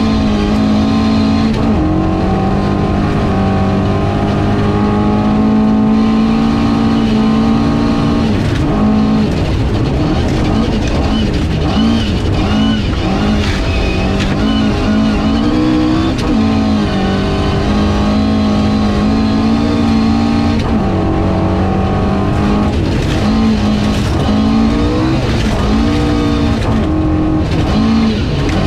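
Ford Escort RS 2000 rally car's engine at full throttle, heard from inside the cabin, its revs climbing and dropping again and again through gear changes and corners. A constant rumble of tyres on gravel runs underneath.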